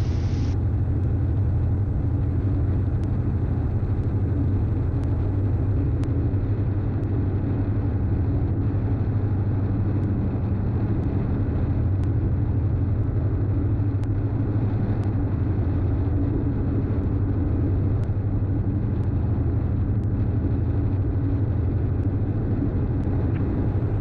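Steady low drone of a Diamond DA42's twin engines and propellers in flight, heard inside the cockpit.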